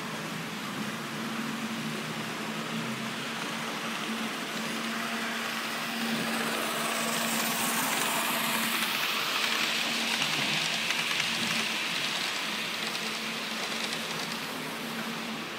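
HO-scale HAG model trains running on a layout: a steady motor hum over the rolling noise of wheels on the rails, which swells in the middle as a second train passes close by.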